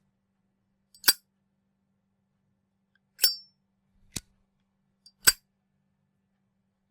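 Zippo lighter's hinged metal lid snapping open and shut: four sharp metallic clicks a second or so apart, two of them with a bright ringing clink.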